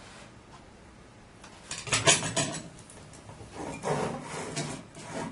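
Handling noise: rubbing and scraping in short bursts, loudest about two seconds in, with another run about four seconds in, as the man holding the tablet shifts it and himself.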